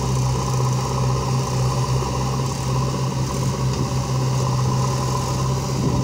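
Diesel engines of JCB 3DX backhoe loaders and a John Deere tractor running together, a steady low engine hum that holds an even pace and level.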